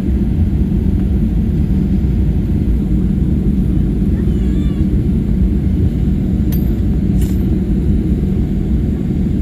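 Steady low rumble of a Boeing 737's engines and rolling gear heard from inside the cabin as the airliner taxis after landing. Two faint clicks come about two-thirds of the way through.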